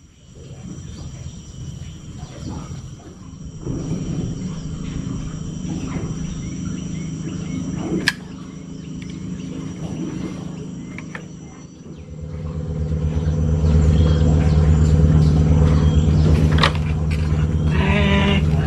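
A low, evenly pulsing engine drone that grows louder about twelve seconds in and then holds steady, with a few sharp clicks.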